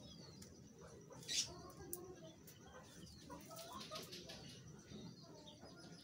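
Faint calls of domestic birds, pigeons and fowl, scattered through the loft, with a brief burst of noise about a second and a half in.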